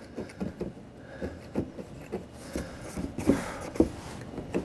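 Hobby knife's chisel blade scraping and chipping set, foamed-out Gorilla Glue off a wooden block: a run of short, irregular scrapes and clicks, with a brief burst of quicker scraping about three seconds in.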